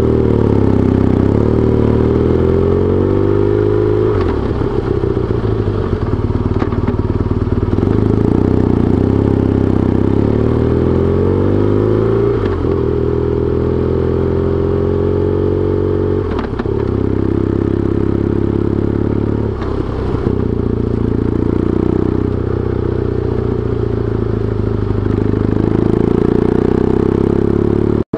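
BMW R1200GS boxer-twin engine running while riding, its pitch rising and falling with the throttle. There are several brief dips in the engine note along the way.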